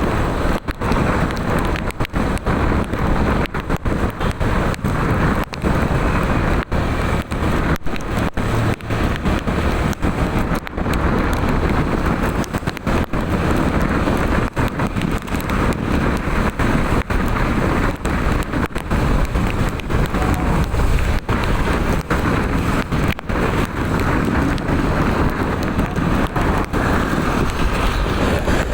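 Loud, steady rushing noise of wind and rain on the microphone, broken by many brief dropouts.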